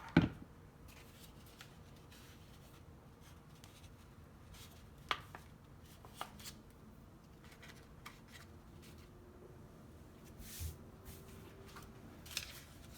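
Cardstock paper petals being handled and pressed into place, with scattered soft rustles and taps. A sharp click just after the start is the loudest sound.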